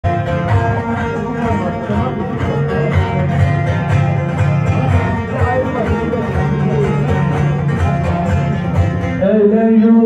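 Bağlama (long-necked Turkish saz) playing a semah tune with quick, even strokes. A singing voice comes in over it about nine seconds in.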